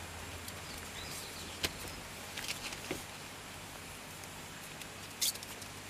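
Quiet outdoor background with a low steady hum and a few faint, scattered clicks and ticks.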